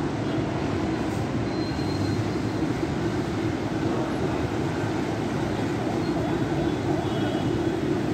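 A steady low rumble of city traffic, with a few faint, brief high tones.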